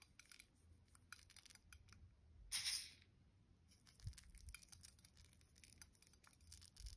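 Very quiet scattered ticks of sugar sprinkles dropped by hand onto iced Easter cakes and the plate, with a brief rustling hiss about two and a half seconds in.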